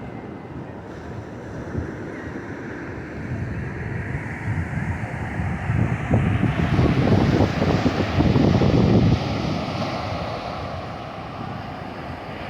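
Ocean surf breaking on the beach, with strong wind buffeting the microphone. The rush builds, is loudest a little past halfway through, then eases off.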